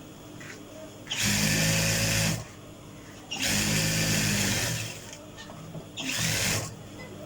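Electric sewing machine stitching a T-shirt side seam, run in three bursts: about a second long, then about a second and a half, then a shorter run near the end, with pauses between.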